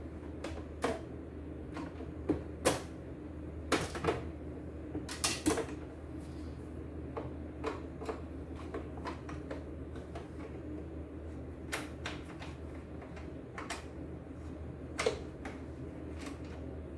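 Irregular clicks and knocks of a screwdriver working screws out of an embroidery machine's plastic casing and the casing being handled, over a low steady hum.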